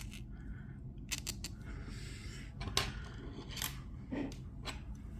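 Small metal clicks and taps from handling a disassembled Master Lock Pro Series 6840 padlock and the tools used to remove its pins, a few scattered clicks over a low steady hum.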